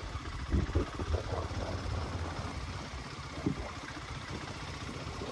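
Motorcycle engine idling and running slowly, a steady low rumble, with a few short knocks in the first second and again about three and a half seconds in.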